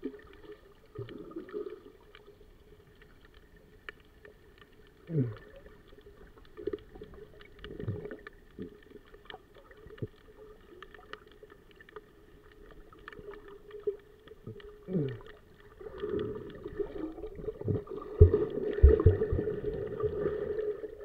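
Muffled underwater sound of water moving around a submerged camera: low swishes and thumps with scattered light clicks, and a couple of falling swooshes. It grows louder and busier in the last few seconds, with several low thumps.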